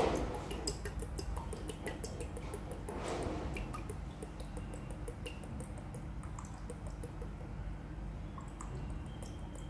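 Liquid trickling and dripping from a blue spout into a stainless steel pitcher, heard as many small irregular drips and ticks. There is a louder knock at the very start and a brief splashy swell about three seconds in.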